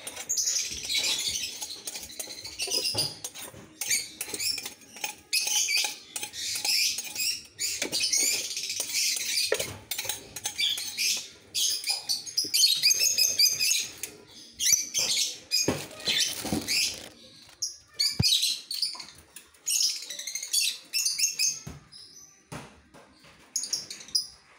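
A colony of lovebirds chattering with dense, rapid, high-pitched squeaky chirps, with a few short knocks in between.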